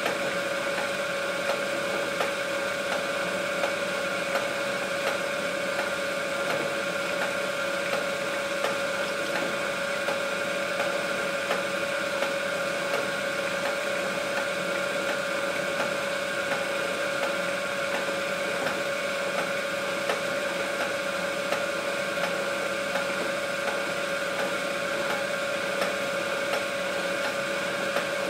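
A machine running with a steady hum made of several held tones, and faint irregular ticking and crackling throughout.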